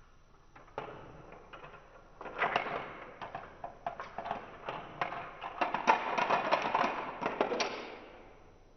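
Balls running through a GraviTrax plastic marble run: a rolling rattle along the rails with a dense string of sharp clicks as they strike and pass through the track pieces. It starts about a second in, grows busier, and dies away near the end.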